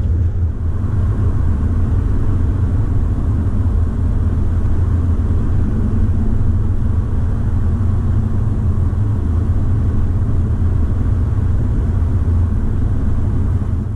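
Truck driving at road speed with a canoe strapped on the roof: a steady low rumble of engine and road noise.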